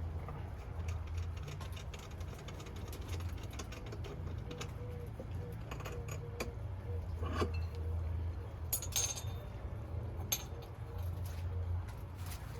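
Handling noises of work on a ceiling light fixture: scattered light clinks and a few sharp clicks, loudest about two-thirds of the way through, over a low steady hum.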